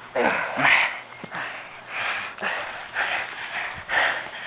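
Heavy, wheezing breaths from a grappler straining, one breath roughly every half second to second.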